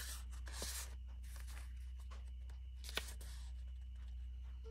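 Printed paper scraps rustling and sliding as they are handled and sorted by hand, with a sharp tap about three seconds in, over a steady low hum.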